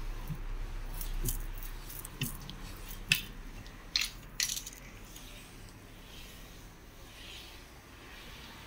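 String mop being pushed over a floor, with several sharp clacks in the first half, then a quieter soft swishing.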